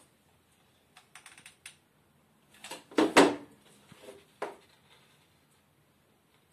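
Handling noises at a wooden worktable as a hot glue gun is used and a clothespin is glued on: a short run of light clicks, then a louder knock about three seconds in as the glue gun is set down on the table, followed by a few more clicks.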